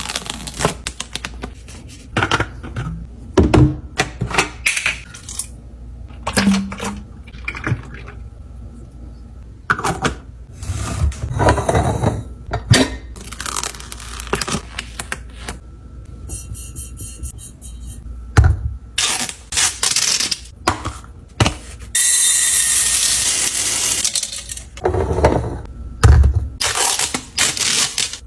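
Containers and packages being handled and set down during a laundry or fridge restock: a string of thunks, clicks and rustles, with a steady rushing noise lasting about two seconds near the end.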